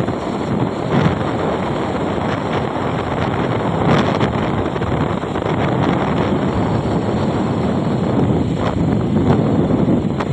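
Loud, steady rush of wind buffeting the microphone from a vehicle moving at speed on a highway, mixed with the vehicle's road noise.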